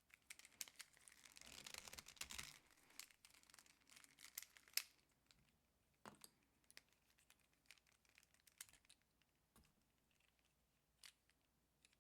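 Faint plastic clicks and rustling as a worn Rubik's cube's pieces are handled and pried apart: a dense flurry of clicks and scraping for the first few seconds, then scattered single clicks that thin out to a couple near the end.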